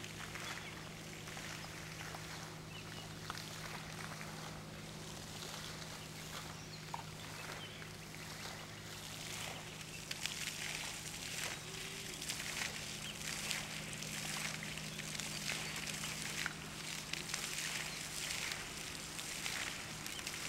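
Outdoor ambience: a steady low hum under faint, scattered rustles and clicks, which grow busier about halfway through.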